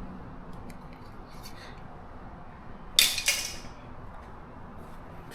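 A metal object handled with a few faint light clicks, then set down with a single sharp metallic clank about three seconds in that rings briefly.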